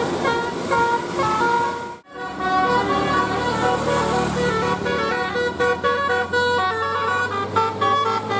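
Bus 'telolet' musical horn playing a quick tune of short stepped notes, with a bus engine running underneath. The sound breaks off abruptly about two seconds in and the horn tune starts again.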